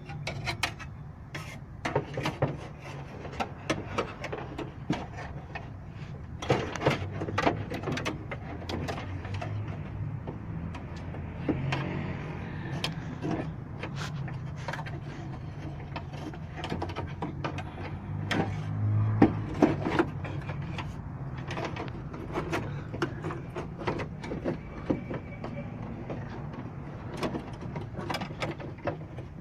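Irregular metal clicks, knocks and rattles from a car door lock assembly being worked back into place inside the door by hand.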